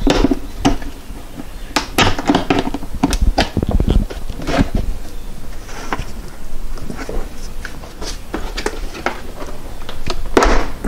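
Plastic shell of a Husky 41004 portable air compressor being pried and pulled apart by hand: irregular clicks and knocks, with a cluster of louder knocks near the end as the shell comes away.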